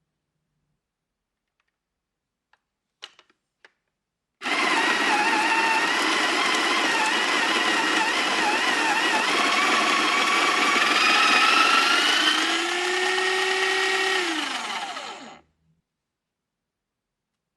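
A few light clicks, then a small electric kitchen-appliance motor runs for about eleven seconds. Its pitch climbs partway through, holds, and winds down as it is switched off.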